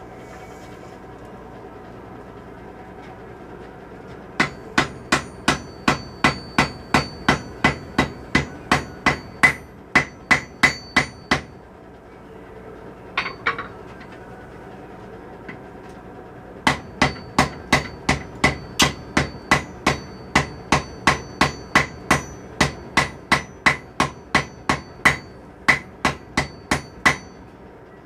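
Blacksmith's hammer forging hot steel on an anvil, drawing out the jaw of a pair of tongs. There are two long runs of steady blows at about three a second, each strike with a bright ring from the anvil, separated by a pause of about five seconds.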